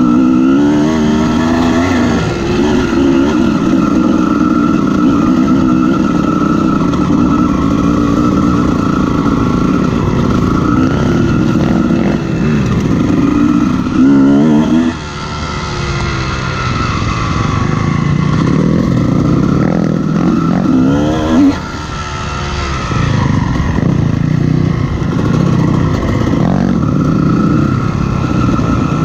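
Honda CR250R's two-stroke single-cylinder engine being ridden hard, the revs rising and falling continuously, with two sharp rises in revs, about halfway through and again some seconds later, each followed by a brief drop.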